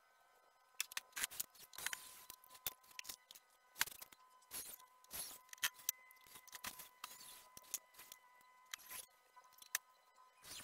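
Irregular clicks, taps and short scrapes of hand tools and scrap wood being handled on a workbench, over a faint steady tone.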